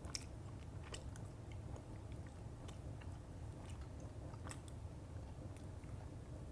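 Faint mouth sounds of someone chewing a soft, gummy mochi, with scattered small wet clicks over a low steady hum.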